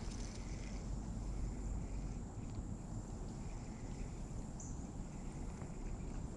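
Riverside outdoor ambience: a steady low rumble with a thin, steady high-pitched drone like insects calling.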